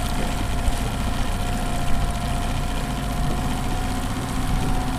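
Fishing boat's motor running steadily at trolling speed, a low, even hum with a thin steady whine above it.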